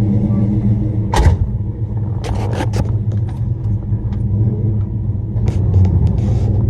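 Box Chevy's engine idling steadily with a low, even rumble. A few short clicks and knocks come about a second in, between two and three seconds in, and near the end.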